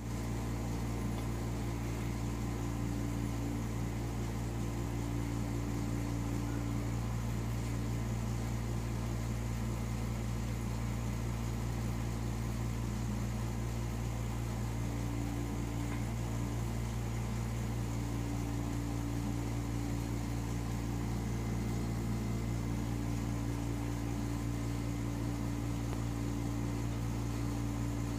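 Steady low hum of a running machine.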